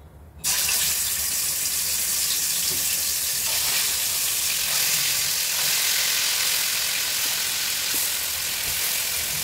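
Yogurt-marinated chicken pieces sizzling as they are laid into shallow hot oil in a kadai. The sizzle starts suddenly about half a second in and keeps on steadily.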